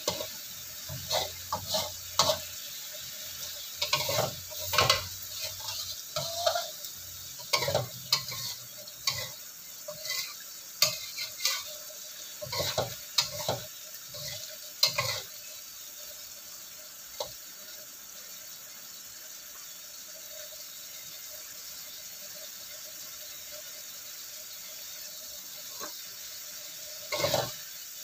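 A spatula stirs and scrapes rendang in a wok, with repeated scrapes and taps for about the first half. Then only the steady sizzle of the coconut-milk sauce simmering down is left, and the stirring starts again near the end.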